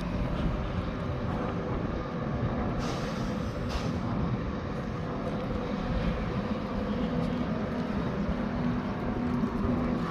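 Steady low rumble of motor vehicles, with a faint steady engine hum throughout.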